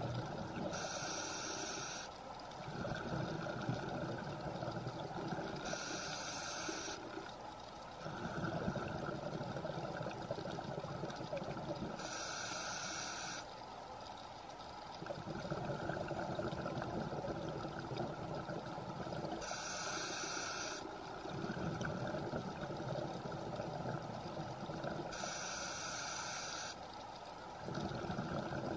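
Scuba diver breathing through a regulator underwater: a short hissing inhale about every six seconds, five in all, each followed by a longer bubbling rumble of exhaled air.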